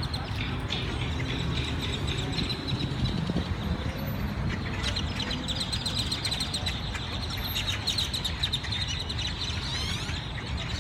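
A large flock of birds chirping all at once, a dense, unbroken chatter that thickens about halfway through, over a steady low background rumble.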